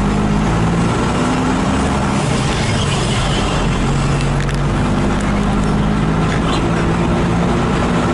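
A moving road vehicle's engine and road noise heard steadily from on board, the engine hum shifting in pitch every second or so.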